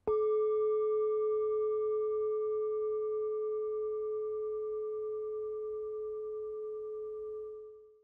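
A single strike on a Tibetan singing bowl: one clear tone with a few higher overtones rings on and slowly dies away, fading out near the end.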